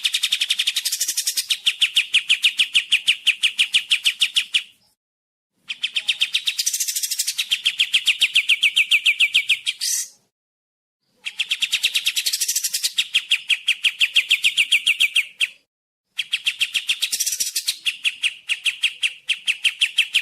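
Kapas tembak singing: four long phrases of rapid, evenly repeated chattering notes, about seven a second, each phrase lasting about four seconds with short silent pauses between.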